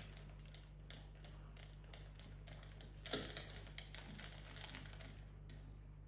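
A cockatoo's beak working at a hanging rope toy: faint, irregular small clicks and taps, with a louder cluster about three seconds in.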